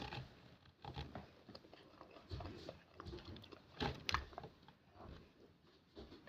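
Faint, scattered crunching and chewing of dalgona, a brittle honeycomb sugar candy, in a few short bursts.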